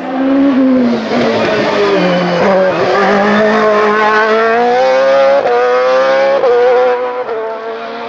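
Lola FA99 single-seater hillclimb race car accelerating hard past at full throttle. The engine note climbs, then drops sharply at each of several upshifts.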